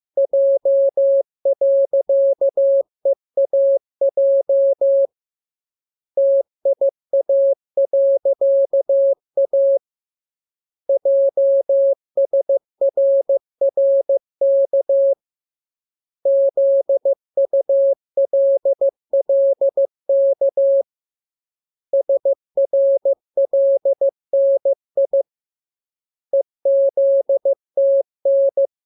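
Morse code sent as a single mid-pitched tone, keyed on and off into dots and dashes. The letters come in groups separated by pauses of about a second, as in a practice radiogram for learning to copy code by ear.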